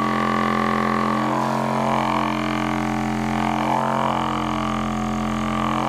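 A steady low musical drone with slowly shifting overtones, in the manner of a didgeridoo.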